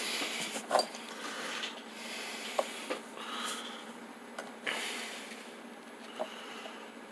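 Light handling noise: soft rustling with a few small, sharp clicks scattered through.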